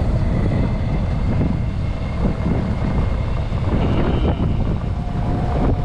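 Wind buffeting the microphone: a loud, steady low rumble with an uneven flutter, with faint voices in the background near the end.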